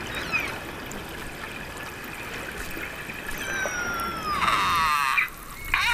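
Killer whales calling underwater over a steady hiss of water: faint sliding whistles, a falling whistle around three and a half seconds in, then a loud buzzy pulsed call about four and a half seconds in, and another starting near the end.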